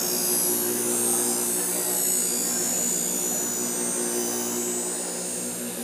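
Bench grinder running with a steady motor hum while a machete blade is held against the spinning wheel, giving a continuous high grinding hiss as the edge is sharpened.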